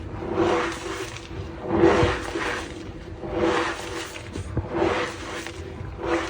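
Reformed gym-chalk blocks being squeezed and crumbled by hand, crunching with a squeaky, creaking undertone in repeated strokes roughly every second and a half.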